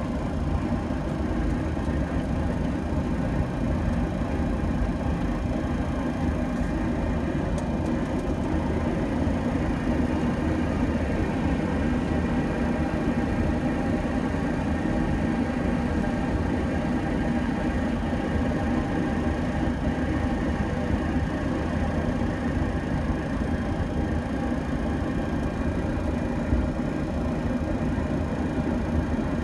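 Steady flight-deck noise of a Boeing 737-700 taxiing in after landing: a constant rumble and hum from its CFM56-7 engines at idle together with the cockpit air conditioning and equipment fans.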